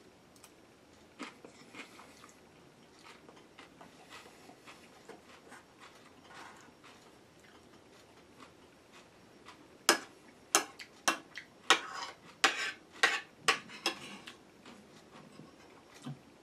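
Metal spoon and fork clinking against a ceramic plate while a salad is eaten: faint small clicks and chewing at first, then from about ten seconds in a run of sharp clinks, roughly two a second, for about four seconds.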